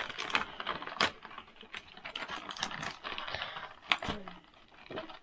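Cardboard and plastic toy packaging being handled and pulled apart: rustling with a run of small clicks and taps, two sharper clicks about a second in and near four seconds.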